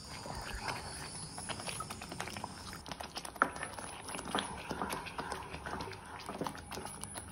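Wooden spatula stirring a thick chickpea-paste gravy in a kadai: irregular scrapes and light knocks of the spatula against the pan.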